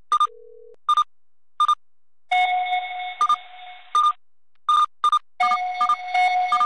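Electronic alert signals from a live seismograph monitor: about ten short high beeps at uneven intervals, with a steady lower alarm tone that sounds for about two seconds midway and comes back near the end. The alerts are set off by seismic waves from the magnitude 6.9 Vanuatu earthquake reaching the monitored stations.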